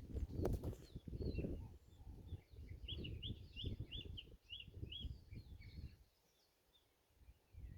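Wild birds calling, with a run of about seven quick, evenly repeated chirps in the middle, over low rumbling noise. The sound drops out almost entirely about six seconds in.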